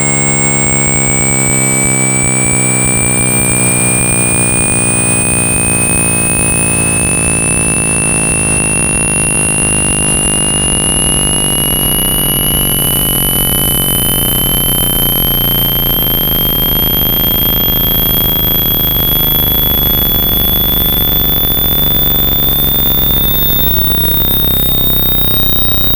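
Synthetic speaker-cleaning test audio: a steady pure tone gliding slowly upward, with fainter very high tones climbing in small steps, over a loud, steady rumbling noise bed. It is a water-ejection and dust-clearing signal meant to vibrate a phone speaker's cone.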